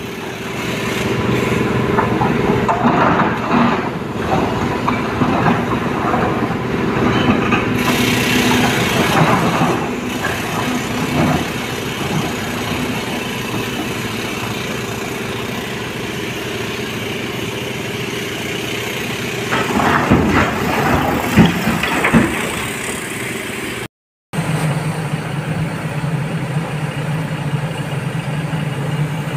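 Heavy diesel machinery running at a truck-loading site: a steady engine hum with louder, rougher stretches a few times. It breaks off briefly near the end, then a steadier, deeper engine hum carries on.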